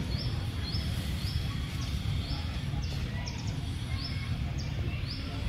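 A bird calling over and over with a short high chirp, about once or twice a second, over a steady low rumble.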